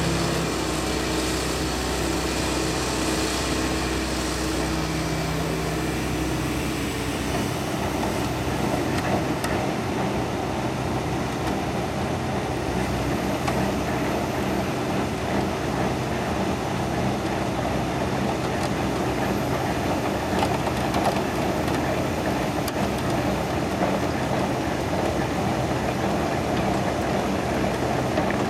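Hitachi excavator's diesel engine running steadily, joined from about seven seconds in by the ALLU screening bucket at work: its rotating screening drums churning as soil and stones are sifted and fall into the pipeline trench, a dense, rough, continuous noise over the engine.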